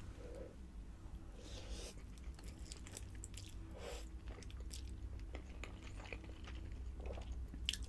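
Close-up mouth sounds of someone chewing pasta: soft wet chewing with scattered small clicks, over a faint low hum.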